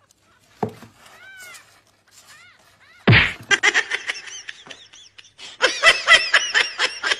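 Young kittens mewing in a box: a few faint, thin mews, then from about three seconds in louder, rapid high-pitched mews mixed with a person laughing. There is a single knock about half a second in.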